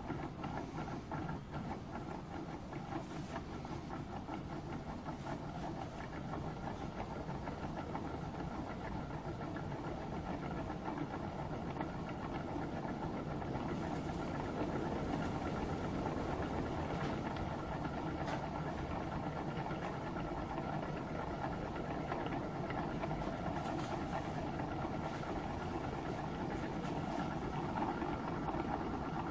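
Small home-built gamma-type Stirling engine running well, its flywheel, crank and pistons making a steady mechanical running sound that grows gradually a little louder.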